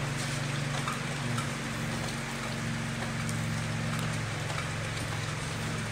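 Small 6.5 hp single-cylinder engine running steadily and driving a grass chopper by belt, the rotor spinning with nothing fed in. It makes an even mechanical hum over a rushing noise.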